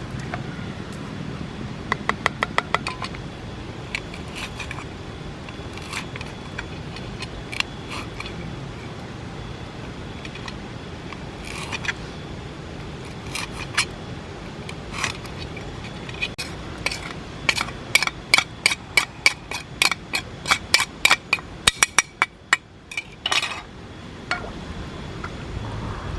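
Utensil clinking against a dish or bowl: a short run of quick ringing taps about two seconds in, a few single clinks, then a longer run of quick, ringing taps in the last third.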